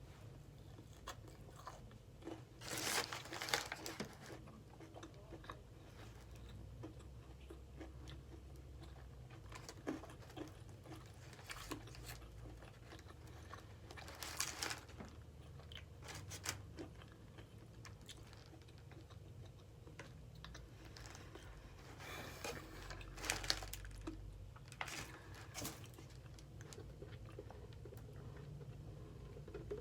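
A person biting into and chewing a Popeyes fried chicken sandwich close to the microphone: a few louder crunchy bites, about three seconds in, near the middle and again shortly before the end, with quieter chewing between.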